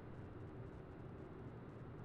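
Distant city traffic: a faint, steady low rumble with no distinct events.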